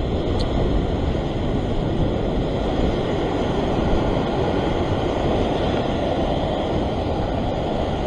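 Ocean surf washing and foaming over coastal rocks, a steady rush with no distinct breaks.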